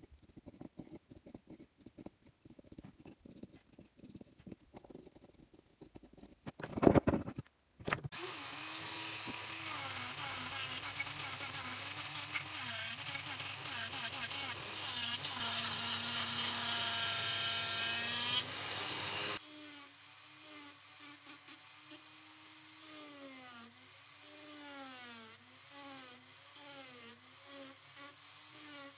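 Pencil scratching faintly on wood, a sharp knock about seven seconds in, then a handheld rotary tool starting up and running, its whine dipping and recovering as the bit and sanding drum bite into the wood. It is loud for about ten seconds, then quieter after a sudden drop.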